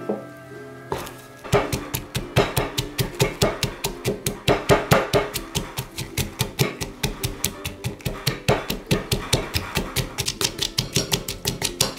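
Wooden pestle pounding garlic, chilies and shallot in a clay mortar: rapid, even knocks, about three to four a second, starting about a second and a half in. Background music plays underneath.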